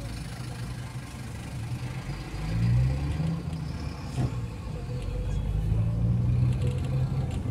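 Car engine accelerating from a standstill, heard from inside the cabin. The revs climb about two and a half seconds in, drop back, then climb again from about five seconds in as it moves up through the gears.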